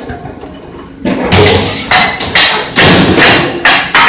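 Metal milk cans being handled at a can conveyor and steel receiving tank: after a quieter first second, a run of sharp knocks and thuds, about two a second.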